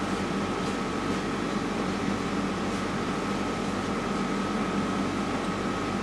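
Steady fan-like hum and hiss with a faint, constant high whine, unchanging throughout.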